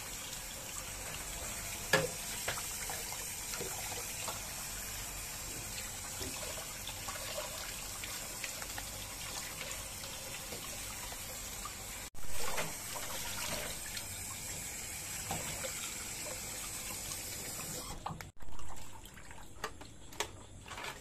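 Kitchen tap running and splashing over mud crabs being rinsed in a plastic basin in a steel sink, with a few sharp knocks along the way. The running water stops near the end.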